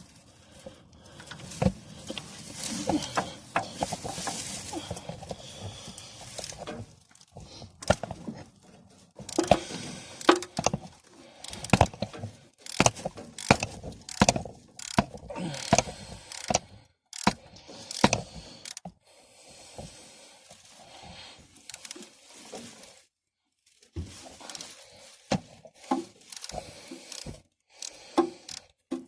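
Hand tools clicking and knocking against metal in irregular runs, with ratchet-like clicks, as the starter's mounting bolts are worked loose.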